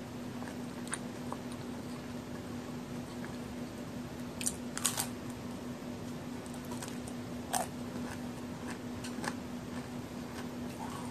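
Bites and chewing of a large homemade chocolate and raisin cookie, with a few short crisp crunches: the loudest cluster about four and a half to five seconds in, another about seven and a half seconds in and a softer one near nine seconds, over a steady low hum.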